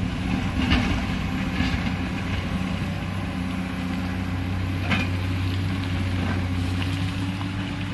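Diesel engine of heavy earthmoving machinery running steadily, with a few short knocks about a second in, near two seconds and near five seconds.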